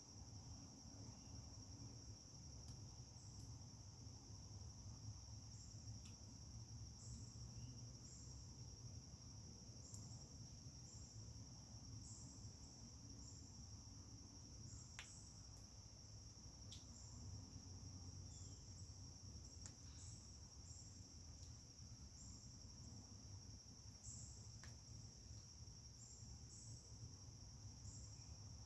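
A chorus of insects trilling steadily in a continuous high tone, with short chirps laid over it, a few faint scattered clicks, and a low rumble underneath.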